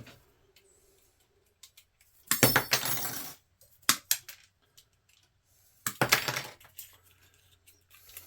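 Plastic power-strip housing and its brass contact strips being handled and pulled apart: two bursts of clattering and clinking, about two seconds in and about six seconds in, with scattered light clicks between.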